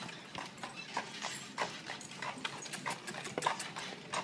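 Shod hooves of a carriage mule clip-clopping at a walk on a paved street, a steady run of sharp clicks, about two to three a second.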